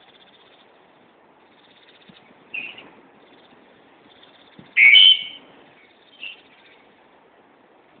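A bird in a tree giving short, clear calls: a softer one about two and a half seconds in, the loudest about five seconds in, and a shorter one just after it.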